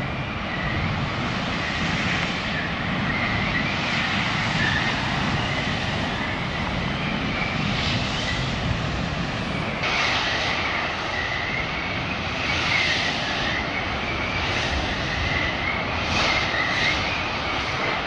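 Steady roar of a huge fire as derailed crude-oil tank cars burn, swelling louder now and then. A faint wavering high tone runs through it.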